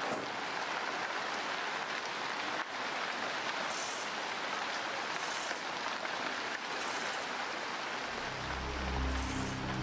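Steady rushing noise of a landslide's muddy debris flow. About eight seconds in, low background music starts underneath it.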